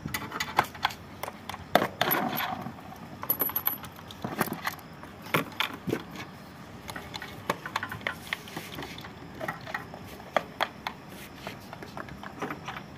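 Metal hand tools clinking and clicking at irregular moments: a box wrench working the body bolts of a scooter, and sockets and bits handled in a plastic tool case.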